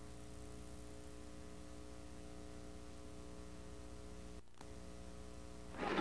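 Steady electrical mains hum with a buzz of many steady overtones in the playback audio of a VHS tape, with a brief dropout about four and a half seconds in. Just before the end, the louder field sound of the game cuts in.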